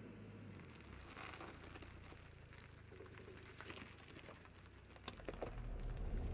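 A 2005 Suzuki Jimny's engine running faintly as the vehicle pulls slowly away, with scattered light crackles. A low rumble builds over the last second or so.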